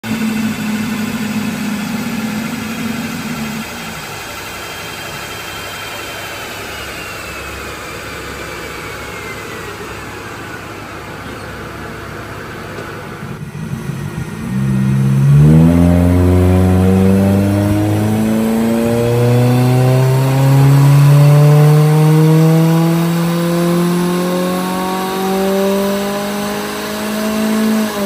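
Hyundai Grandeur 2.4 naturally aspirated four-cylinder running on a chassis dynamometer. In the first few seconds it runs at speed, then it winds down with a whine that slowly falls in pitch. About halfway through it starts a full-throttle pull under load, the engine note climbing steadily in pitch for more than ten seconds.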